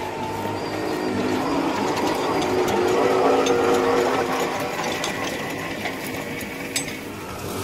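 Naïo TED electric vineyard robot running past at close range, a steady mechanical whir that swells to its loudest about three to four seconds in and then eases off, with light clicks on top.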